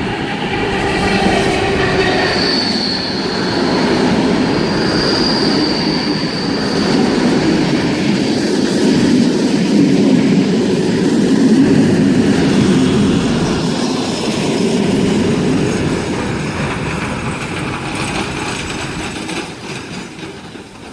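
Locomotive-hauled train led by GL110 rolling along the platform, a steady rumble of wheels and engine with a high wheel squeal a couple of seconds in; the sound swells toward the middle and eases off near the end.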